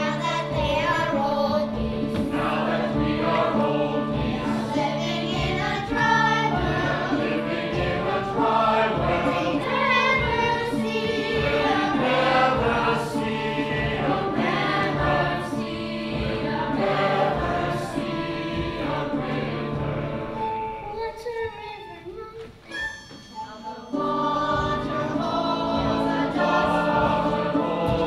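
Opera chorus singing with instrumental accompaniment. About three-quarters of the way through the music thins out and drops for a few seconds, then the full chorus comes back in.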